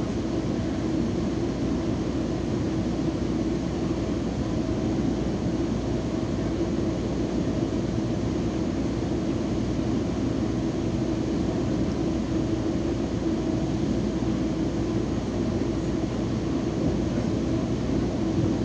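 Steady running noise of a Metrolink commuter train in motion, heard from inside a passenger car: an even rumble with a steady hum over it.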